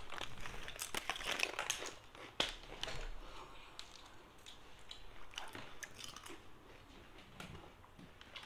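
Close rustling and crackling handling noise, with a dense run of crinkles and clicks over the first two seconds, then scattered clicks.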